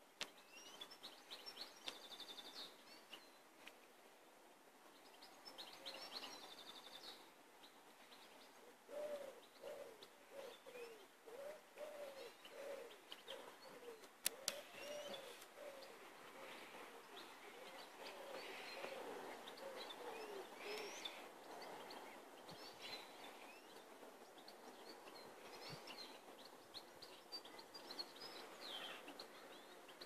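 Birds calling, faint: small songbirds chirping and trilling, with a run of low repeated cooing notes from a pigeon starting about nine seconds in. A faint steady hiss lies underneath, with one sharp click near the middle.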